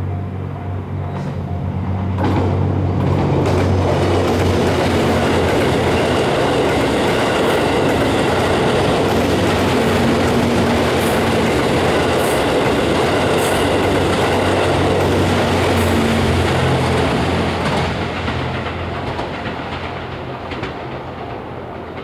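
JR West Series 87 Twilight Express Mizukaze diesel-electric hybrid train passing close by. Its engine hum is heard as it approaches, then the loud steady rush of wheels on rail rises about two seconds in and fades away over the last few seconds. A level-crossing bell dings in an even rhythm before the train arrives.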